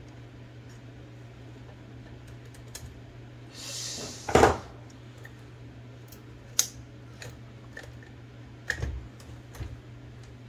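Scattered sharp clicks and knocks of an Olivetti Linea 98 typewriter's metal parts being handled during repair, with one loud knock about four seconds in, just after a short hiss. A steady low hum sits underneath.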